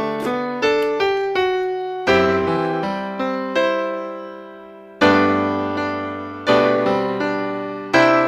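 Background piano music: gentle chords struck every second or two and left to ring out, with a few quicker melody notes between them.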